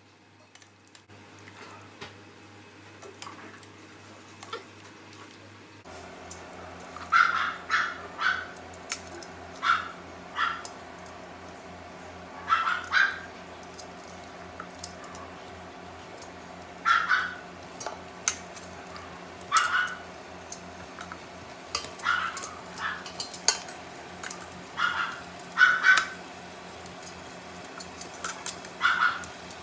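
A dog barking repeatedly in short barks, often two in quick succession, with light clinks of metal tongs against a stainless steel pot. A steady low hum starts about six seconds in.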